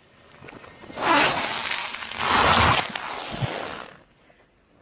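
Car tyre rolling slowly over gritty asphalt up to a football, a rasping crunch that swells twice and cuts off suddenly about four seconds in.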